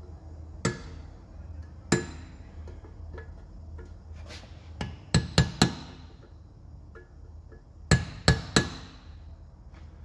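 Ball-peen hammer striking a steel punch against a truck door hinge held in a bench vise, driving out the old plastic-and-brass-mesh hinge bushing. About ten sharp metallic blows that ring briefly: two single strikes, a quick run of five about halfway, and three more near the end.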